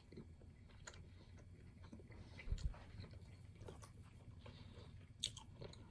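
Faint chewing of a mouthful of thin-crust pizza, with scattered soft mouth clicks and a low thump about two and a half seconds in.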